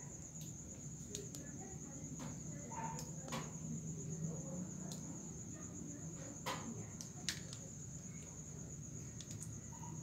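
Crickets trilling in one steady high-pitched note, with scattered faint clicks over it; the sharpest click comes about seven seconds in.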